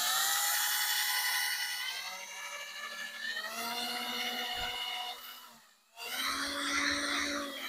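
Small electric drill boring holes through a laptop's plastic hinge mounting. Its whine rises in pitch as it speeds up and runs for about five seconds. It stops briefly, then runs again for a shorter stretch near the end.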